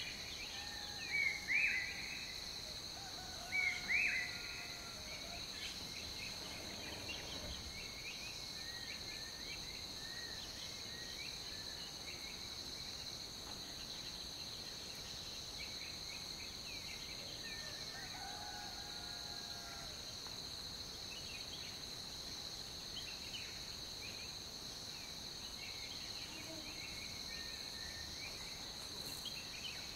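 Outdoor ambience of insects and birds: a steady high insect drone with scattered bird chirps and calls throughout. The loudest sounds are two short clusters of bird calls, about a second in and again about four seconds in.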